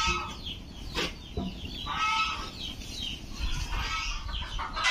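Chickens clucking, with short calls scattered through, and a sharp tap about a second in.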